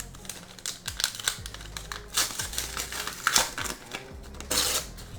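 Paper Pokémon card packs being handled and torn open by hand: irregular crinkling and tearing rustles.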